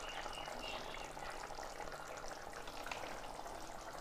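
Bengali fish curry in mustard-poppy gravy simmering in a steel wok on a gas flame: a low, steady bubbling and fine crackle.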